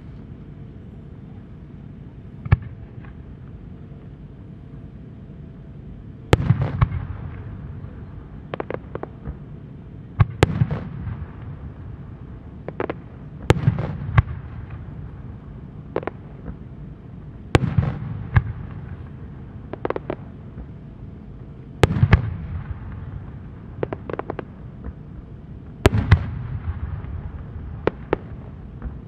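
Japanese aerial firework shells, four-pistil chrysanthemums with rising tails, bursting in the sky. One boom comes first, then from about six seconds in a string of sharp booms every second or two, each followed by a rolling echo.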